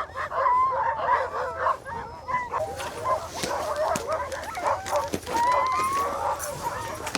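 A large pack of sled dogs barking and yipping all at once in a constant overlapping chorus, with some longer wavering howl-like calls mixed in.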